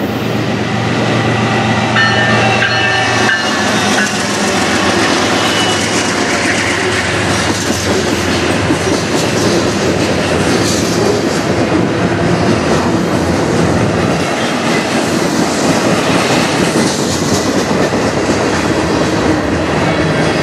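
CN freight train passing close: the GE ES44DC and C44-9W diesel locomotives go by with a low engine drone and a brief high squeal in the first few seconds, then a steady rolling clatter of freight car wheels on the rails.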